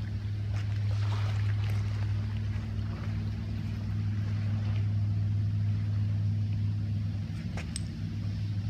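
A steady low mechanical hum, like heavy machinery or a large engine running, with a few faint crunches of footsteps on crushed shell.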